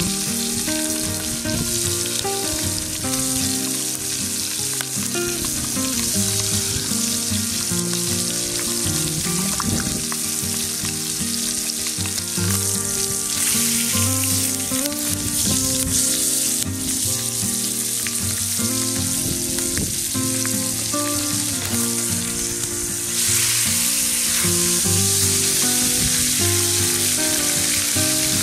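Brown trout frying in fat in a cast-iron skillet over a wood fire, a steady sizzle that grows louder about two-thirds of the way through.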